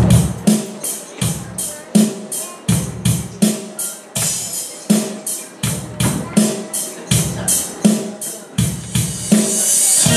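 Recorded party music with a steady drum beat of about three hits a second. At the very end it gives way to sustained keyboard chords.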